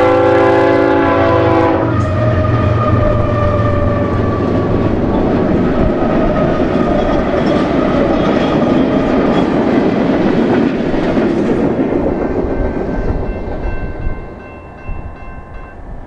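Diesel locomotives of a BNSF light-engine power move passing close, led by BNSF 7130. A multi-chime air horn sounds a chord that cuts off about two seconds in. Then the engines and the steel wheels on the rails run past and fade away about twelve seconds later.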